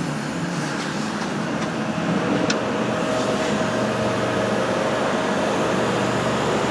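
Steady mechanical hum from a powered-up Haas VF-3 vertical machining center, with a faint steady whine coming in about two seconds in and a few light clicks early on.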